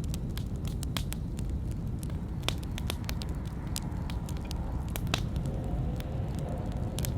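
Wood campfire burning with a steady low rumble and frequent sharp crackles and pops at irregular intervals. A faint wavering whistle comes in over the second half.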